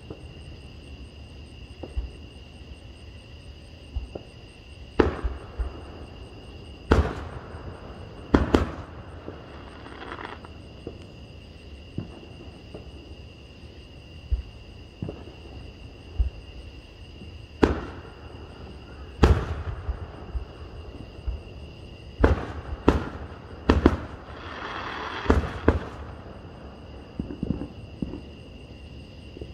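Aerial fireworks shells bursting: sharp booms at irregular intervals of one to a few seconds, several coming in quick pairs. Near the end there is a spell of crackling from a crackle-effect shell.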